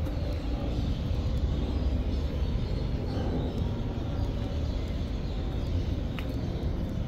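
Steady low outdoor rumble of ambient background noise, with one brief tick about six seconds in.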